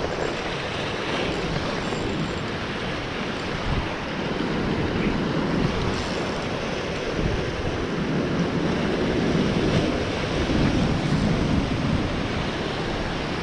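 Wind buffeting the microphone over the sea, a steady rushing noise with the wash of waves beneath it.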